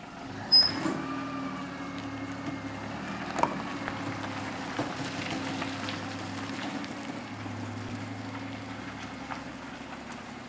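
A motor running steadily with a low drone, and a sharp knock about half a second in and a smaller one about three and a half seconds in.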